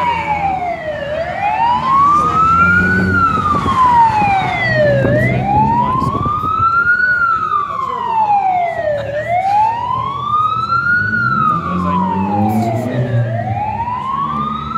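Vehicle siren on the wail setting: its pitch climbs slowly and falls again about once every four seconds. An engine runs underneath.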